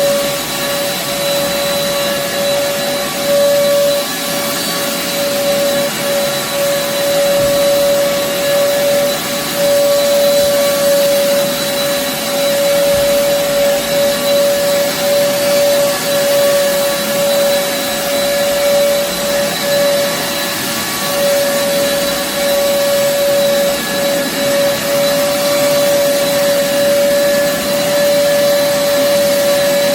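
An old vacuum cleaner runs steadily over carpet with a constant whine on top of the rush of its airflow. The owner says it has lost its suction.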